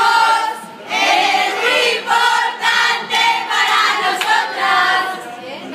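A group of young women singing together in chorus.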